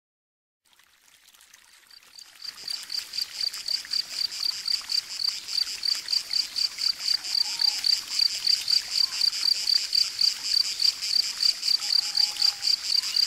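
Crickets chirping in a fast, even pulse of about four chirps a second, fading in over the first couple of seconds.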